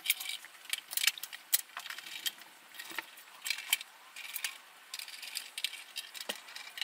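Screwdriver turning small screws into the stainless steel panel of an Apex espresso machine: a run of irregular small metallic clicks and rattles.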